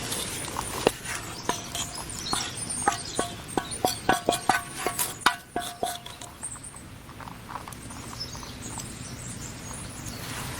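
A quick irregular run of sharp knocks and clinks, some ringing briefly like hard objects striking, thickest about four to five seconds in, then stopping and leaving a steady outdoor hiss.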